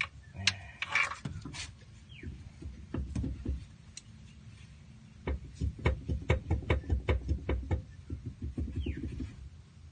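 Flywheel loose on the back of the crankshaft, knocking and clunking. A few scattered knocks, then from about five seconds in a quick, dense run of heavy clunks that dies away near the end. This is the horrible noise, caused by the flywheel working loose from the crank.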